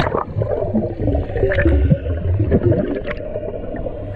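Underwater bubbling and gurgling as a freediver plunges in, heard muffled with a low rumble of churning water beneath.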